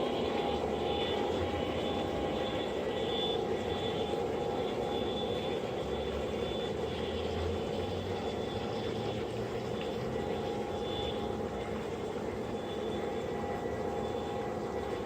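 O scale three-rail model train running on outdoor track, a steady whirring hum of motor and wheels on the rails.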